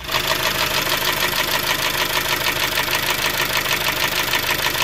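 Honda K20A4 2.0-litre four-cylinder idling with a rapid, even knocking-tapping that a fresh valve adjustment has not cured. The owner now suspects a connecting rod or rod bearing moving around in the bottom end.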